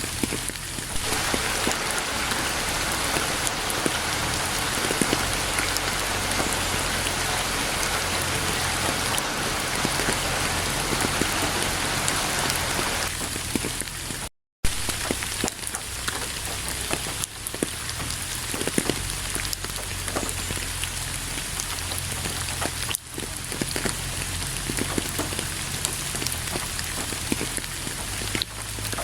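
Steady rain falling on a surface, a dense hiss dotted with individual drop ticks. About halfway through the sound cuts out for a fraction of a second, then resumes.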